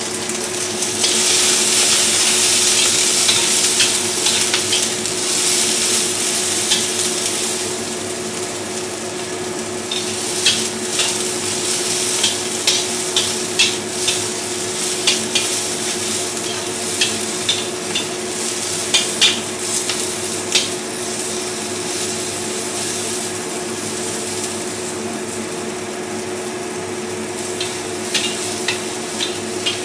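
Small shallots and dried red chillies sizzling in hot oil in a stainless-steel wok, loudest in the first several seconds. A metal spatula scrapes and clicks against the wok as they are stirred.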